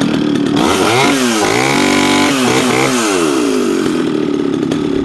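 Echo CS-650EVL 65cc two-stroke chainsaw engine idling, then blipped up to high revs about half a second in. It holds there briefly and drops back down to idle by about three and a half seconds in.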